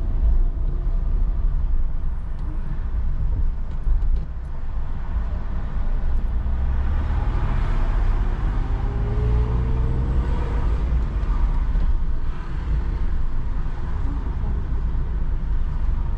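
Moving car heard from inside the cabin on a wet road: a steady low rumble of engine and tyres. About six seconds in, an engine note rises for a few seconds as the car picks up speed, with louder tyre noise around the same time.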